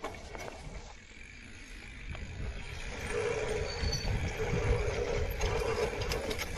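E-mountain bike riding downhill over grass: wind and tyre rumble on the handlebar-mounted action camera, getting louder about three seconds in, when an on-and-off mechanical whine from the bike joins in.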